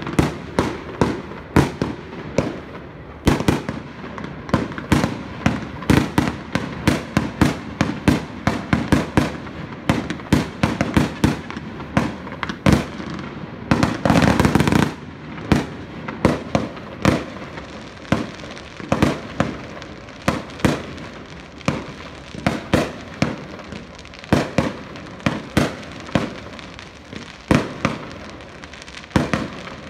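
Fireworks display: aerial shells bursting in a steady stream of sharp bangs and pops, several a second, with a louder rush of noise lasting about a second roughly halfway through.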